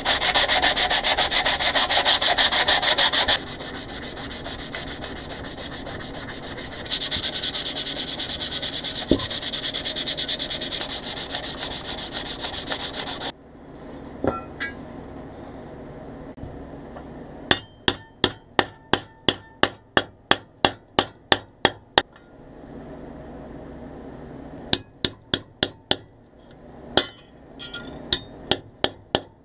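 A sanding sponge rubbing back and forth over a pressed-steel Tonka toy part, easing off for a few seconds in the middle and stopping about thirteen seconds in. After a pause, a ball-peen hammer strikes a punch in two quick runs of sharp metallic taps, about four a second.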